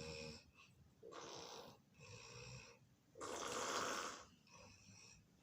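Snoring in deep sleep: a run of noisy breaths, about one a second, the loudest a little past halfway.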